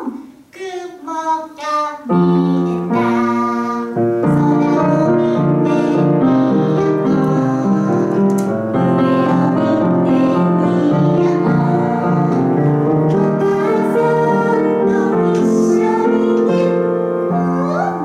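A song with piano accompaniment and a woman's singing voice. It starts in full about two seconds in, after a few short vocal phrases.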